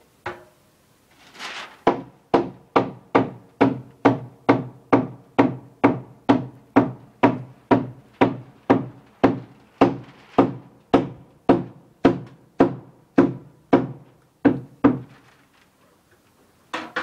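Steady hammer blows on wood, about two a second for some thirteen seconds, each with a short low ring.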